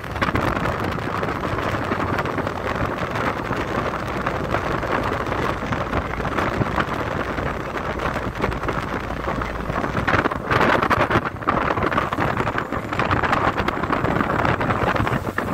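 Steady rushing noise on the open deck of a passenger ferry: wind on the microphone over the ship's running noise.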